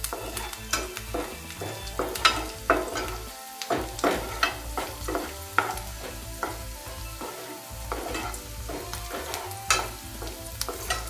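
Chopped garlic and ginger sizzling in hot oil in a nonstick frying pan while a spatula stirs them, scraping and tapping the pan about once or twice a second.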